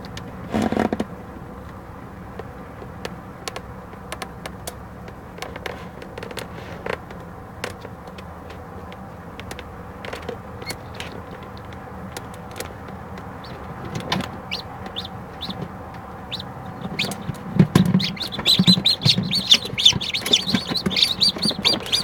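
Newly hatched chicks peeping inside an incubator over a steady hum, with scattered light clicks. About five seconds before the end the peeping turns into a rapid run of high chirps, with a few soft thumps as the chicks move.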